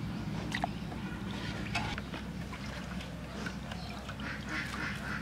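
Domestic ducks quacking, with a quick run of quacks near the end.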